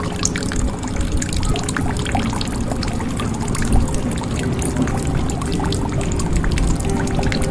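Water pouring and trickling into a jug, with a dense, steady patter of small drops.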